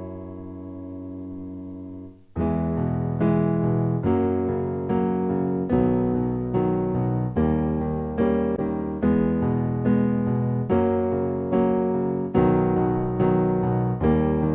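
Piano music: a held chord dies away for about two seconds, then fresh chords are struck at an even, moderate pace, each ringing and fading before the next.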